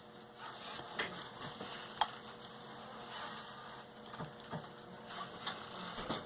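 Faint pencil work and handling on foam board: soft scratching with a couple of light taps, about one and two seconds in.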